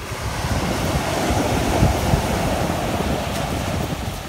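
Sea surf breaking and washing up the shore, one wash swelling about a second in and easing near the end, with wind rumbling on the microphone.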